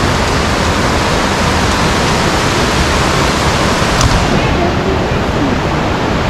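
Loud, steady rush of flowing water, even and unbroken, with a single sharp click about four seconds in.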